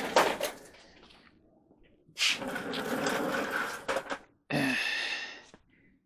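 Office chairs being moved across a concrete floor: a couple of seconds of rolling and scraping, then a shorter scrape about four and a half seconds in.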